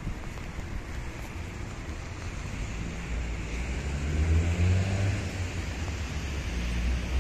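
A motor vehicle drives by on a wet road, over a steady hiss. Its engine note comes in about three seconds in, rising and growing louder toward the end.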